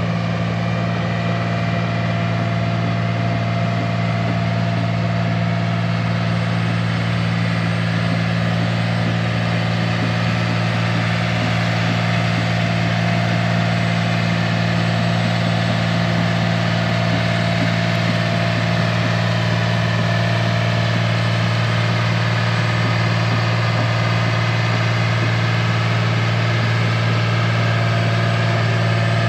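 Bulldozer's diesel engine running at a steady speed: a constant, unchanging low drone.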